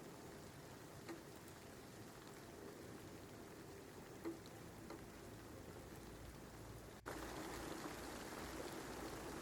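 Steady rain, faint, with two small taps about a second and about four seconds in. About seven seconds in, the sound cuts out for an instant and comes back louder.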